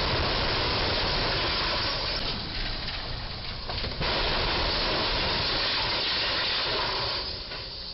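Steady hiss with a low rumble: street traffic noise at an intersection. It dips briefly about four seconds in, then carries on, and grows softer near the end.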